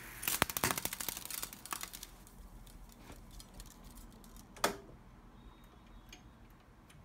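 Pioneer RT-909 reel-to-reel tape deck clicking and ticking: a fast run of clicks that thins out over about two seconds, then a single sharp click midway and another at the end as its controls are worked.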